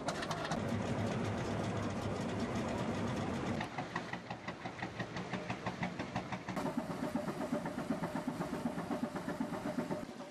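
A slow-running heavy engine beats steadily. A little under four seconds in the sound changes and the separate beats stand out clearly, about four to five a second.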